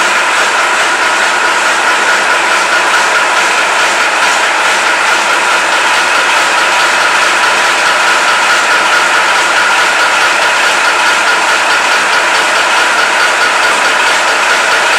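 Praga S5T truck's diesel engine idling steadily and loudly, still cold after a cold start made without starting spray.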